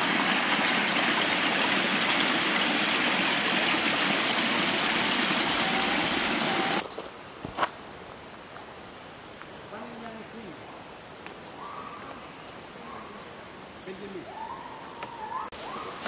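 Small rocky forest stream trickling, with a steady high insect trill over it. About seven seconds in the water noise cuts off, and the trill goes on over quieter forest background with a few faint short chirps.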